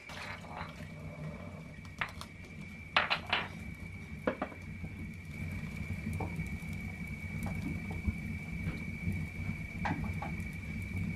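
A wooden spoon stirs nopales in chile sauce in a glazed clay cazuela, scraping and knocking against the pot a few times, over the steady low sound of the stew simmering.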